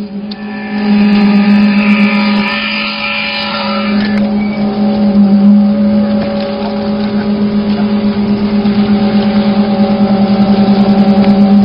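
Concrete mixer pump running with a steady engine hum. In the last few seconds it takes on a fast, even pulsing that grows louder.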